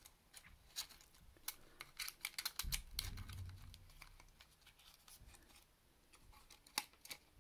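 Light, irregular clicks and taps of small plastic and metal parts as fingers work on the opened Sony MZ-N707 MiniDisc Walkman, seating a ribbon cable and fitting the casing, with a brief low handling rumble about three seconds in.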